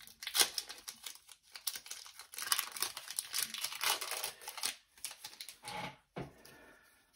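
Foil wrapper of a Pokémon TCG Battle Styles booster pack being torn open and crinkled in the hands: an irregular crackling that thins out near the end.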